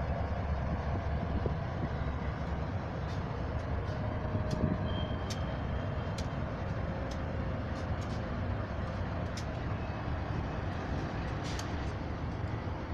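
Freight train passing: the lead diesel locomotives and then the freight cars rolling across a bridge, a steady rumble with scattered sharp clicks and a few brief faint squeals.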